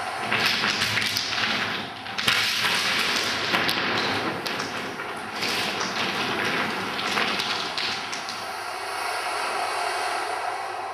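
Stones clattering and scraping as they are walked on and shifted, in irregular bursts with a few sharp knocks, over a steady hiss.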